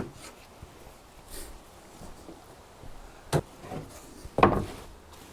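A few separate knocks and clatters of clamps and wooden boards being handled as the clamps are undone. The loudest comes about four and a half seconds in.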